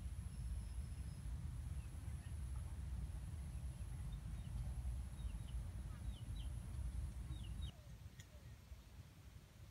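Outdoor field ambience dominated by a steady low rumble of wind on the microphone, with small birds giving short quick chirps and a thin high steady whine. The rumble and whine drop away abruptly about eight seconds in, leaving quieter ambience with a few more chirps.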